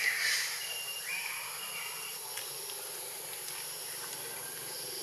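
Steady high-pitched insect drone, with a few short level whistle-like notes in the first two seconds.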